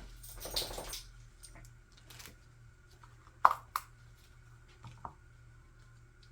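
Handling of objects on a work surface: a short rustle just after the start, then two sharp taps close together about three and a half seconds in and two fainter taps about a second later, over a faint steady hum.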